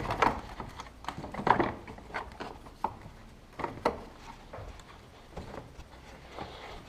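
Fan shroud being worked loose and drawn out of the engine bay: a few separate knocks, clicks and scrapes as it shifts against the surrounding parts.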